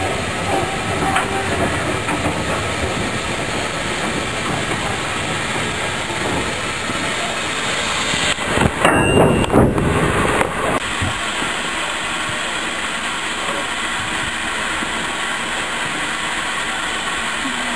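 Small tank steam locomotive giving off a steady hiss and rumble, with a louder, rougher stretch of about two seconds a little before halfway.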